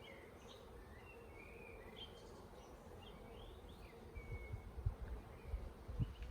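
Honeybees buzzing steadily around an opened hive, with short bird chirps over them in the first few seconds. Low thumps come in during the second half.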